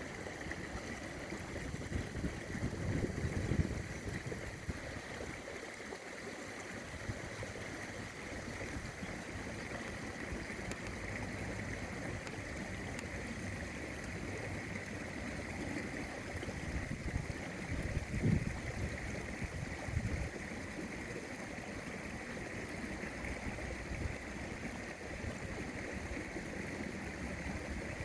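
River water flowing steadily, with gusts of strong wind buffeting the microphone about three seconds in and again near the middle.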